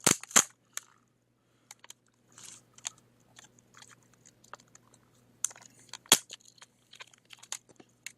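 Plastic shell of a lithium-ion laptop battery pack being pried and peeled apart: scattered clicks and crackles of plastic, with sharp snaps right at the start and about six seconds in.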